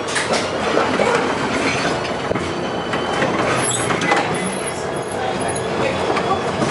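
LM-68M tram running along the track, wheels clattering over rail joints and the car body rattling, with brief high wheel squeals about halfway through.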